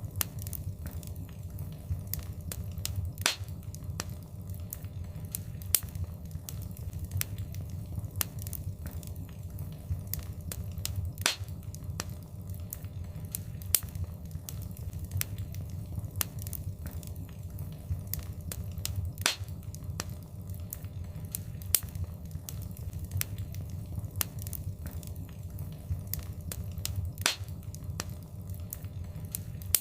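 Wood fire in a fireplace crackling: a steady low rumble of flames with frequent small snaps and a few louder pops.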